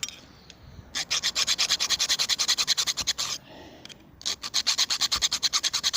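A hand file rasping along the cut edge of a steel Uni-strut channel in quick, rapid strokes, widening the notch so it will fit over the mount. Two bouts of filing, with a short pause between them about halfway through.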